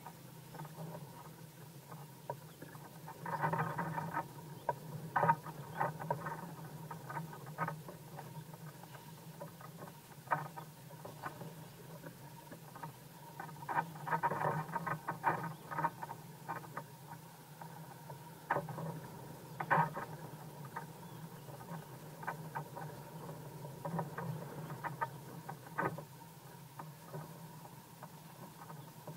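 Wind buffeting the microphone: irregular crackles and rustling gusts over a steady low hum, strongest in bursts about three seconds in, around fourteen seconds and near twenty seconds.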